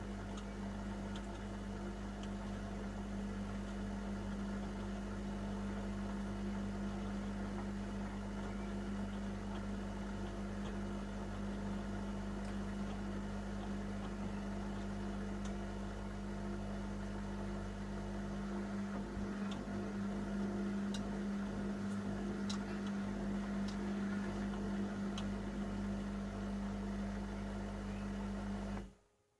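Panasonic NA-147VB2 inverter washing machine running with a steady, even hum that holds one pitch, with a few faint ticks in the second half; it cuts off suddenly near the end.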